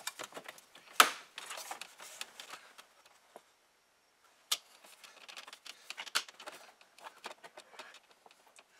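Plastic interior trim on a 2021 Ford F-150 dash being worked loose by hand, with scattered plastic clicks and snaps and some rustling; the sharpest snap comes about a second in and another about four and a half seconds in.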